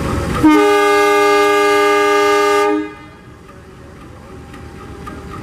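Diesel locomotive horn, the CC 203 at the head of a ballast train, sounding one steady multi-note blast of a bit over two seconds as the departure signal; afterwards the locomotive's diesel engine runs on more quietly, slowly growing louder.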